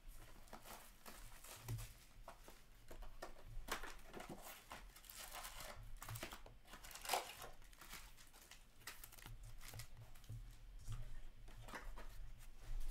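Trading cards and their pack wrappers being handled by hand: faint, irregular rustling, sliding and crinkling as a stack of hockey cards is flipped through and shuffled.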